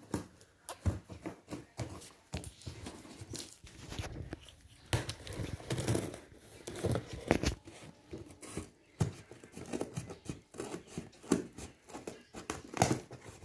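A cardboard parcel being opened by hand: tape and packaging tearing, crinkling and rustling, with many scattered sharp knocks and clicks.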